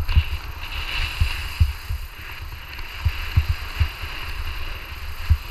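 Skis hissing as they slide over snow on a downhill run, with wind buffeting the action camera's microphone in irregular low thumps.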